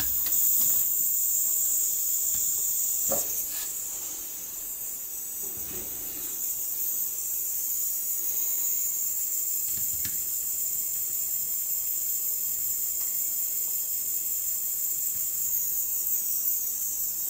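Cordless butane soldering iron hissing steadily, with a couple of faint knocks from the panel and wires being handled, about three seconds in and again near the ten-second mark.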